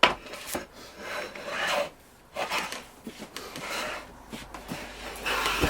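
Hand plane taking shavings off a sapele staff: several separate scraping strokes, about five, each under a second long.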